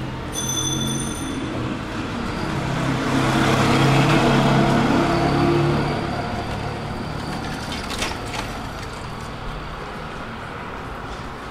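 Street traffic with a motor vehicle passing close: its engine hum swells to a peak a few seconds in and then fades. A brief high-pitched tone sounds near the start.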